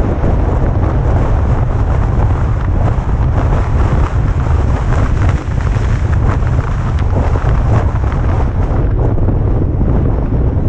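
Wind buffeting the microphone of a camera on a moving car: a loud, constant low rumble with a rushing hiss over it.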